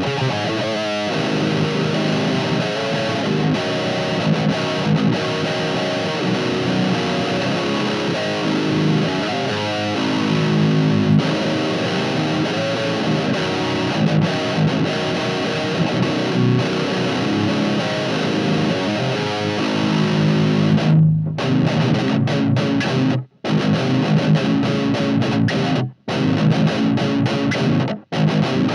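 Distorted electric guitar playing a riff through a guitar amp and speaker cabinet. The playing is continuous, then stops dead three times in quick succession near the end.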